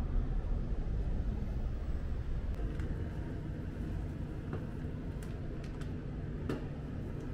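Steady low rumble of background noise, with a few faint clicks and light knocks in the middle.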